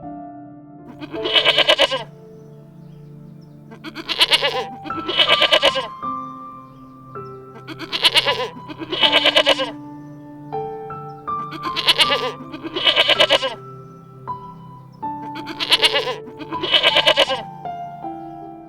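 Bleating calls, typical of a goat or sheep, come in pairs about every four seconds, five pairs in all, over background music with steady notes.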